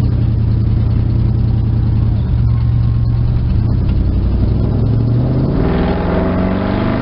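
Car engine heard from inside the cabin while driving slowly, running steadily with a low hum; about five and a half seconds in it picks up, its pitch rising slightly.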